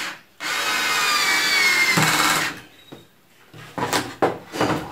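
Cordless screwdriver driving a screw into a wooden board: its motor runs for about two seconds, the whine dropping slightly in pitch as the screw goes in. A few short knocks of wood being handled follow near the end.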